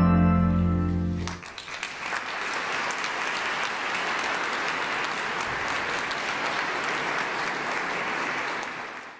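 Pipe organ and violin hold a final sustained chord, with deep organ bass, that ends about a second and a half in. Audience applause follows and dies away near the end.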